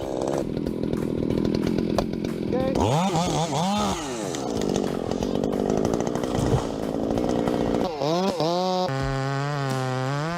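Husqvarna 2100 two-stroke chainsaw cutting timber, then revving up and down a few times and settling into a steady high-revving run near the end.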